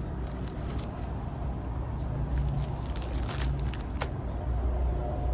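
Baseball cards and their plastic rack-pack wrapper being handled: scattered sharp crinkles and clicks, a cluster about three seconds in, over a steady low hum.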